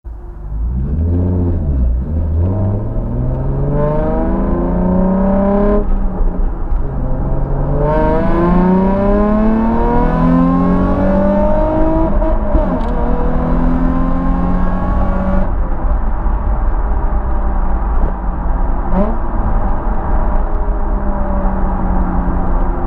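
Nissan 350Z's 3.5-litre V6 heard through a Scorpion un-resonated cat-back exhaust with Y-pipe and high-flow sports cats. It pulls away and accelerates up through the gears, the pitch rising and dropping back at each shift. About two-thirds of the way in it eases off to a steady cruise.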